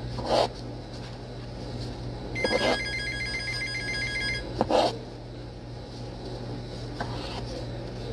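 A telephone rings once near the middle for about two seconds, a warbling ring, with the next ring starting just after. Three short knocks of a knife against a cutting board as cherry tomatoes are sliced are the loudest sounds, over a steady low hum.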